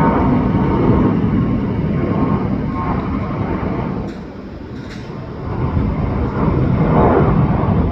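Jet airliner engines rumbling loudly, a low rushing roar that eases about four seconds in and then swells again.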